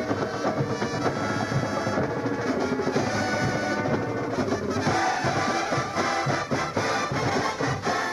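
Drum and bugle corps playing: a G-bugle horn line sounding over the drum line.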